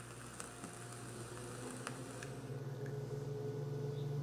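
A long draw on a sub-ohm dripper vape with a few faint crackles from the coil, over a steady low hum that grows louder toward the end, when the vapor is blown out.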